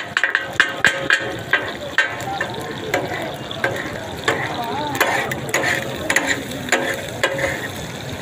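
Steel spatulas clattering on a large iron griddle as kata-kat meat is chopped: a fast run of metallic strikes, about five a second, that slows after a second and a half to scattered single strikes and scrapes, with the mixture frying underneath.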